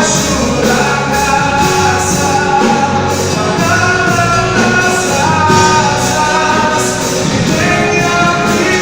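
Live Christian worship band playing a song: sung melody over drums and other band instruments, at a steady loud level.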